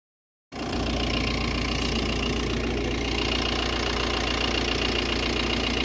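A car engine idling steadily, starting abruptly about half a second in.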